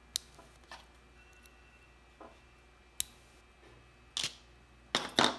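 Sharp plastic clicks from an ITW Magnetic Valve keyboard switch being worked in the fingers: a few single clicks spaced out, then a louder quick cluster near the end.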